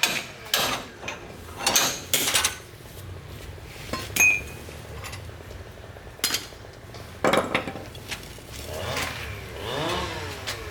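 Metal tools and parts clinking and knocking at an uneven pace, with one short ringing clink about four seconds in and some scraping near the end.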